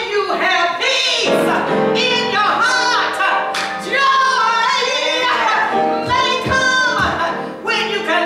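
A woman singing a slow gospel line solo, holding long wavering notes that slide up and down in pitch.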